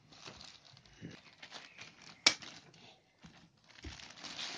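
Plastic wrapping crinkling and rustling as it is pulled open by hand, with one sharp click about halfway through.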